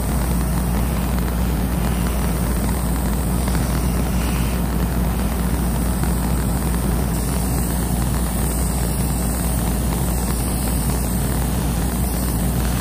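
Steady loud rush of air over a low hum: a hobby paint spray booth's exhaust fan running while a Mr. Hobby airbrush sprays paint.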